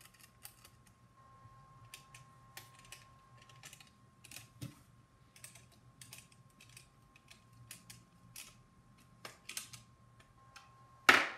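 Scattered light clicks and taps of 3D-printed plastic blaster parts and small screws and nuts being handled and fitted together, with one sharp, loud knock near the end.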